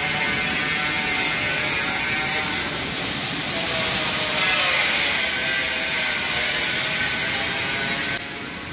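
Steady mechanical noise with a faint hum of several held tones, dropping in level shortly before the end.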